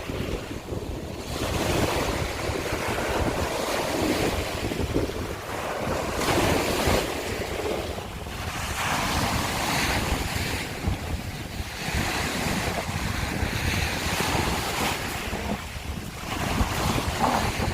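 Sea waves breaking and washing over a shore of broken scallop shells, swelling and ebbing every few seconds, with wind rumbling on the microphone.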